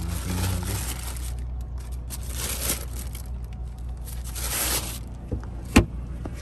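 Thin plastic bag rustling and crinkling in three bursts as it is pulled open, with one sharp knock near the end over a steady low hum.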